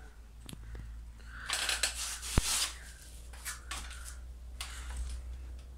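Cat eating from a bowl: irregular chewing and crunching noises with soft clicks, loudest in a burst a second and a half in that ends in a sharp click.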